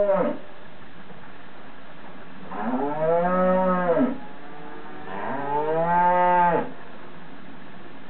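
Cow mooing: the end of one moo at the start, then two long moos of about a second and a half each, a couple of seconds apart, each rising and then falling in pitch.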